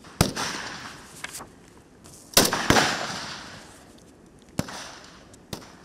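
Single shots from AK-pattern assault rifles on a firing range, each a sharp crack followed by a rolling echo. One shot comes near the start and a fainter one a second later, then a quick pair about two and a half seconds in and two more spaced shots near the end.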